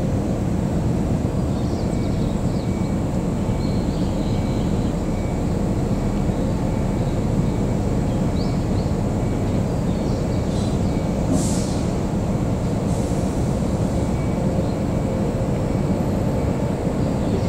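Shinano Railway 115-series electric train pulling slowly out of the station toward the listener on a test run: a steady low rumble of motors and wheels, with a short hiss about eleven seconds in.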